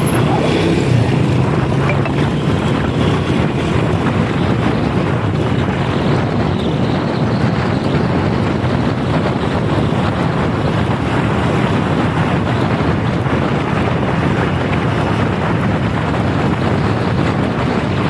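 Wind rushing over the microphone of a moving motorcycle, with the motorcycle's engine running steadily underneath.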